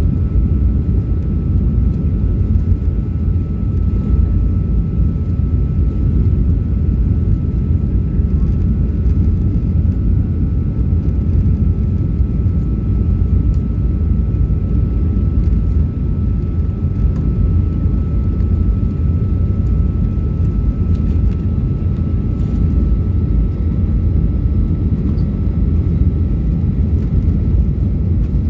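Jet airliner cabin noise during the descent toward landing: a steady low rumble of the engines and airflow, with a faint steady high whine running through it.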